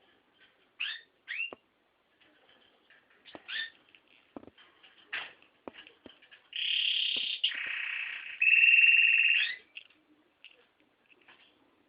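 Male red-factor canary singing: scattered short chirps and sweeping notes, then about six seconds in a loud run of rapid trills lasting about three seconds.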